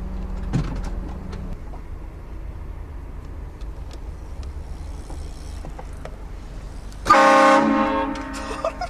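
A very loud multi-tone air horn blasts once, about seven seconds in, for about a second and a half, then fades. Before it there is only the low drone of the vehicle's engine and road noise.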